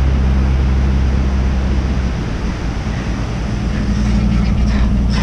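Vehicle engine running with wind and tyre noise while driving on beach sand. The low engine drone eases about two seconds in and picks up again near four seconds.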